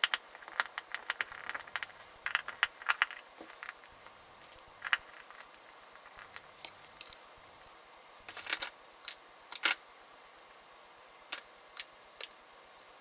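Irregular small clicks and ticks of a screwdriver working small screws at the wire terminals of a vacuum cleaner's plastic cable-reel base, with fingers handling the screws and wire. The clicks are thickest in the first few seconds, then come in sparse little clusters.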